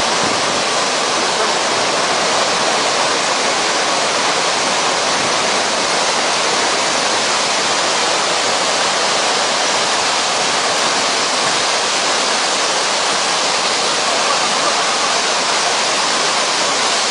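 Floodwater of a swollen river rushing in a loud, steady, unbroken roar.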